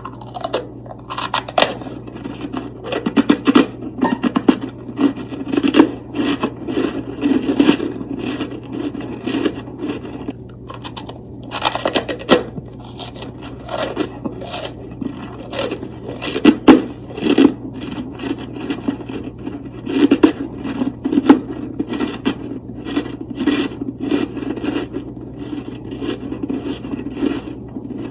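Soft freezer frost being scraped and scooped off a freezer's frosted surface in repeated rough, raspy strokes, with a steady low hum underneath.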